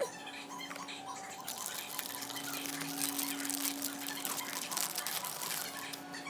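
Plastic packaging crinkling and rustling as it is handled, densest for a few seconds in the middle, over a faint steady hum.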